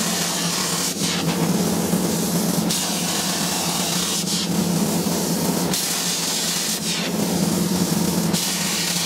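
CNC plasma cutter cutting 2 mm steel plate: a loud, steady hiss of the plasma arc and air, growing stronger and weaker every second or so as the torch cuts a row of short vent slots, over a steady low hum.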